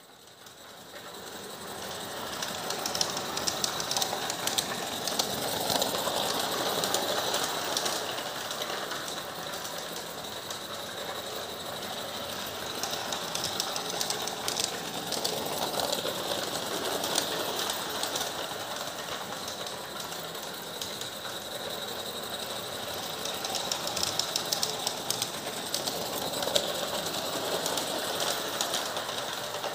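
Mamod live-steam model locomotive running under steam with a short train of wagons on 45 mm gauge track: a rapid chuffing, clicking rattle of its running gear and wheels on the rails. It grows louder over the first couple of seconds and swells again as the train comes close.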